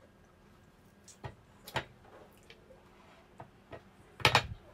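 Mouth sounds of biting the skin off a ripe mango with the teeth: a few sharp clicks and wet smacks, then a louder short burst of noise near the end.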